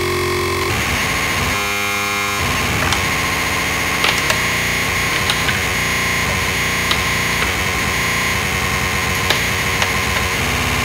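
Benjolin and Fourses analogue synthesizers patched together, putting out a dense, harsh noise texture with steady whistling tones high up. About two seconds in a brief buzzy pitched tone cuts through, and sharp clicks crop up now and then.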